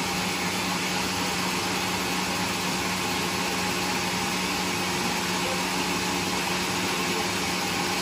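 Sawmill machinery running steadily with no load, a constant drone with a low hum and no change in pitch.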